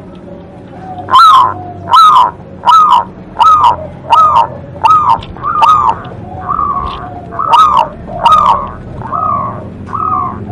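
Zebra dove (perkutut) cooing: a long run of loud, evenly spaced notes, about one and a half a second, each dropping slightly in pitch. The run starts about a second in, and the later notes are a little softer.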